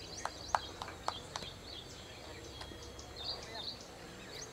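Birds chirping with repeated high calls in the background, and a quick run of five sharp clicks, about a third of a second apart, in the first second and a half.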